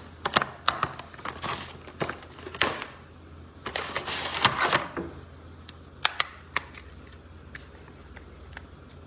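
Plastic toy and packaging being handled: scattered sharp clicks and taps, with a stretch of crinkling rustle about four seconds in.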